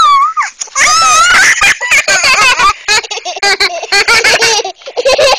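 Young children giggling and laughing uncontrollably in rapid, high-pitched bursts, with short breaks for breath.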